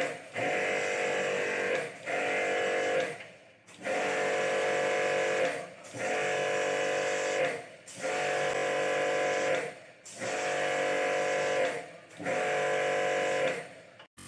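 Electric pressure-washer pump spraying water onto a split AC indoor unit's coil, its motor whining in about seven bursts of a second and a half or so, each cut off briefly as the trigger is released and squeezed again.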